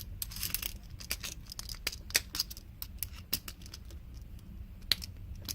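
Irregular small metal clicks and scrapes of tools working on a padlock while gutting it, two sharper clacks standing out; the core is held in tight and does not come free.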